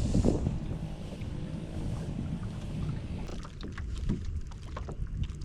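Wind rumbling on the microphone and water moving against the hull of a small Gheenoe skiff, with a few light clicks in the last two seconds.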